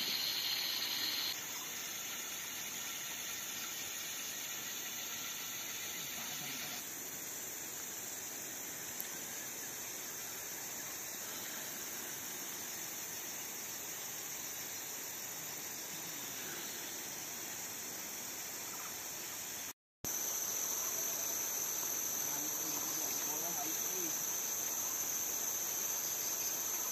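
Steady high-pitched drone of night insects over a constant hiss in tropical forest, broken by a brief dropout about twenty seconds in, after which it is a little louder.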